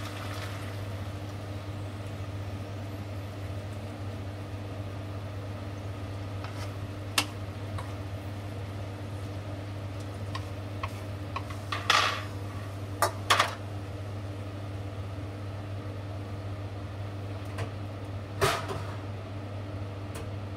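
A steady low hum, with scattered knocks and clatters of a wooden spatula against a nonstick frying pan as green beans and spinach are stirred. A louder clatter comes near the end as the pan is moved off the hob.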